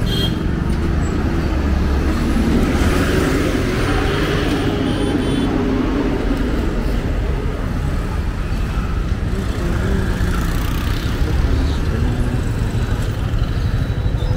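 Street traffic: motor vehicles running by in a steady stream of engine and road noise.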